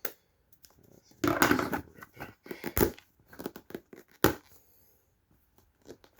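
Packaging being handled and pulled open: crinkling and tearing, with scattered sharp clicks and knocks, the loudest about three and four seconds in.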